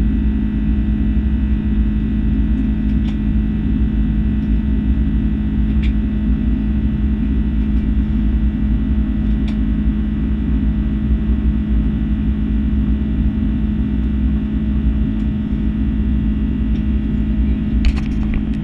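Steady low drone inside the cabin of an Airbus A330-300 in flight after takeoff, its Rolls-Royce Trent 700 engines and air conditioning making an even hum. A few faint clicks come through, with a short cluster of clicks near the end.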